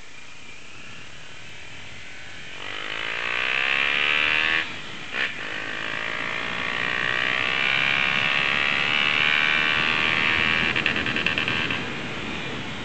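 Motorcycle engine accelerating, its pitch rising, breaking off sharply at a gear change a little under five seconds in, then pulling up again in a long rise. Near the end there is a quick run of rapid pulses before the engine note drops back.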